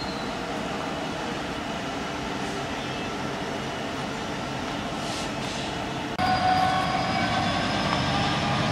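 Class 66 diesel freight locomotive, with its two-stroke EMD V12 engine, approaching slowly at the head of a freight train, engine and wheel noise mixed with faint steady whines. About six seconds in the sound suddenly gets louder and the whining tones come through more clearly.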